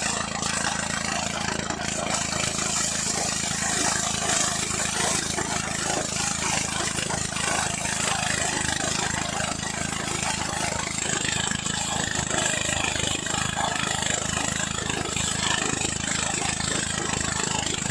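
Engine-driven rice thresher converted into a corn sheller, running steadily. A low engine hum sits under a continuous rattling hiss from the spinning drum.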